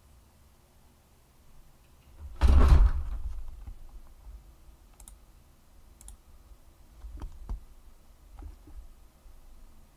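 A loud bump and rustle on the microphone about two and a half seconds in, as the mic arm right at the face is moved, followed by a few scattered light clicks and knocks.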